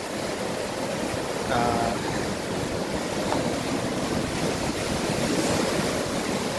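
Rough sea surf breaking and washing around shoreline rocks: a steady rush of waves.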